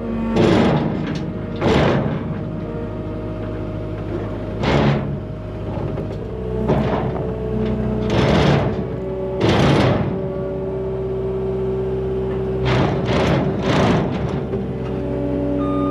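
Cat 289D3 compact track loader's diesel engine running under hydraulic load, its steady note changing pitch about six seconds in and again near the end. Over it come repeated short scraping clunks as the lifted trailer is shaken and shifted.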